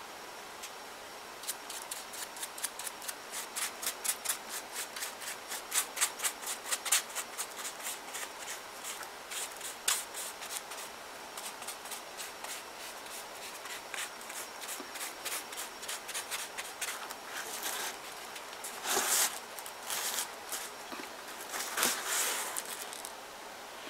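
A paintbrush scrubbing wet gesso onto a paper-mâché figure in quick, scratchy strokes, about three or four a second, slowing after the first half. Near the end come a few louder rustles as the paper-mâché figure is handled.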